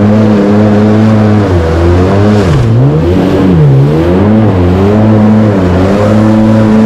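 A motor engine running loudly, its pitch holding steady, then dropping and rising again twice near the middle as it is revved down and up.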